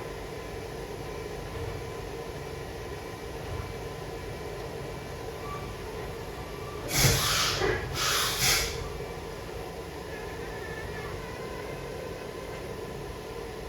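Steady machine-shop hum with a few steady tones, broken about halfway through by two short bursts of hissing, each about half a second long and a second apart.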